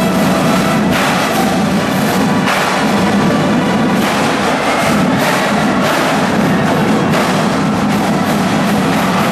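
A high school drumline playing with bass drums and snares, with brass horns joining in. The music holds loud and steady throughout.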